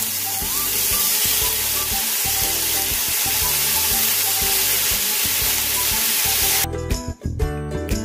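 Marinated beef bulgogi sizzling in hot olive oil in a frying pan as the slices are dropped in and spread with chopsticks. About six and a half seconds in the sizzle cuts off abruptly, leaving background music.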